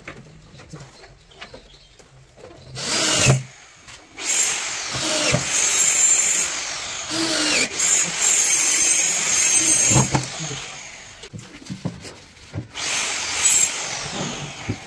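Electric power tool working wood at a carpenter's bench in three runs: a short one, a long steady one of about six seconds, then a shorter one near the end.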